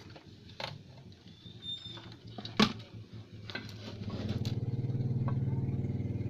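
Scattered clicks and taps as fingers handle parts on a circuit board, the sharpest about two and a half seconds in. From about four seconds in, a motor vehicle engine runs with a fast, even pulse and grows louder.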